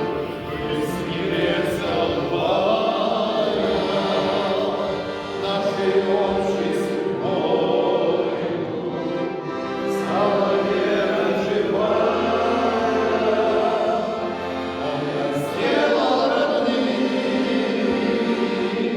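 A church choir singing together in long held notes.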